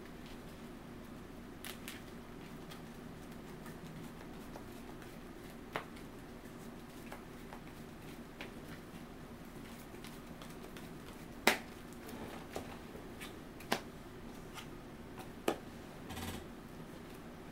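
Trading cards being handled and set down on a table: a few scattered sharp taps, the loudest about eleven seconds in, and soft shuffling over a steady low room hum.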